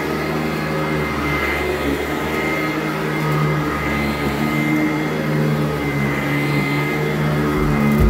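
Sanitaire SC899 direct-air commercial upright vacuum running steadily as it is pushed over carpet, a constant motor hum with a high whine. A low thump comes right at the end.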